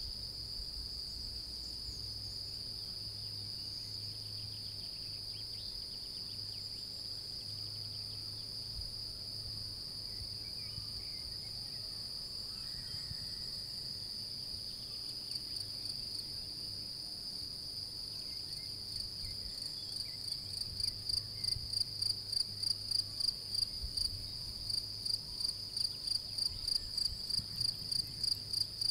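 European field crickets trilling steadily in a chorus. Past the middle, one close field cricket starts chirping at about three chirps a second, and it grows louder toward the end.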